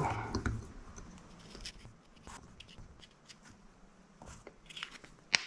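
Light clicks and rustles of hands handling a small plastic-and-carbon drone frame and a marker pen, busier at first, with one sharp click near the end.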